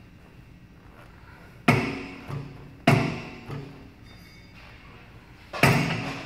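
Gym exercise machine's metal weights clanking three times at irregular intervals, each clank ringing on briefly and followed by a softer knock.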